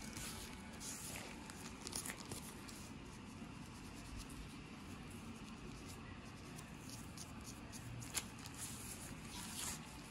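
Plastic fine-tooth comb scratching and scraping across the scalp through thick hair, lifting dandruff flakes loose: faint, irregular scratching strokes.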